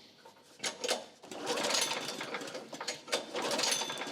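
Honda small engine cranked over with its recoil starter in a few quick pulls, spark plug out and a spark tester fitted. Because there is no compression, the engine spins freely with a fast mechanical rattle.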